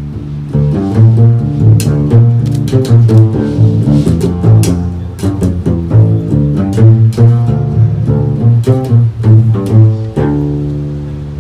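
Unaccompanied upright double bass solo played pizzicato: a quick run of plucked notes, then a single low note left ringing from about ten seconds in.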